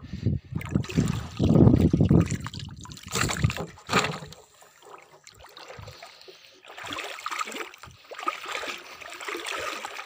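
Pond water sloshing and lapping against a plastic tub floating at the surface. Irregular low bumps and rumbles come in the first four seconds or so. After that there is a lighter, steady trickling splash.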